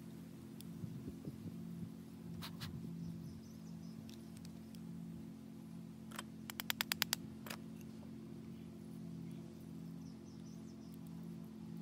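Small sharp clicks from a screw-barrel black-powder derringer and its loading tools being handled during reloading. There are a couple of clicks a few seconds in, then a quick run of about eight clicks within a second, then one more, over a steady low hum.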